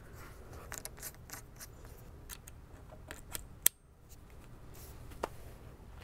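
Brass hose quick-connect fittings being handled on a faucet: faint scattered metallic clicks and scraping. There is a sharper click about three and a half seconds in and another near the end.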